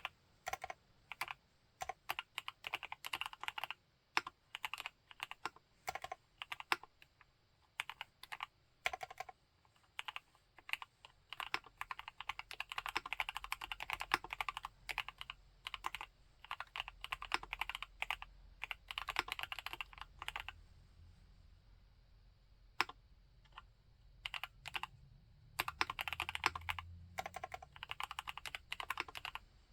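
Typing on a TACWORKS TAC T2 mechanical keyboard fitted with Gateron Yellow linear switches: runs of fast keystrokes with short pauses. About two-thirds of the way through there is a lull of several seconds broken by a single keystroke, then the typing picks up again.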